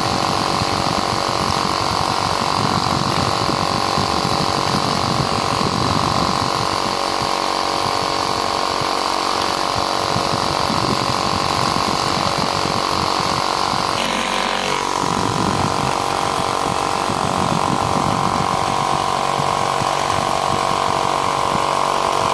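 Electric fan running with a steady motor hum and a vibrating buzz. The sound shifts briefly about two-thirds of the way through, then settles back to the same steady running.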